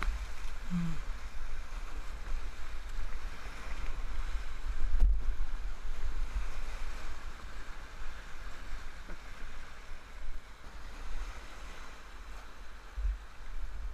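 Whitewater rushing around a kayak, muffled as heard through a closed helmet-camera housing, over a steady low rumble of buffeting, with a thump about five seconds in.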